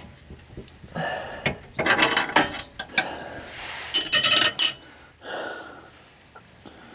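Hand tools working on a transmission bolt: two bursts of rapid metallic clicking, about a second in and again about four seconds in, with scattered clinks of metal on metal between.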